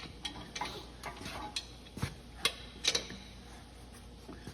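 Scattered metallic clicks and clinks of hand tools and bolts being worked on an engine, irregular, with the sharpest few about two to three seconds in.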